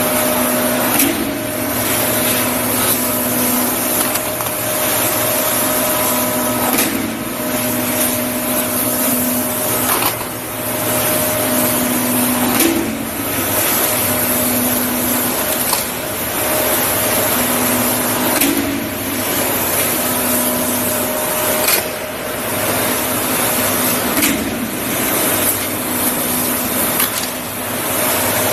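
Roll forming line with a flying shear in production: a steady machine whir with a humming tone that comes and goes, and a sharp clack every few seconds as the shear cuts.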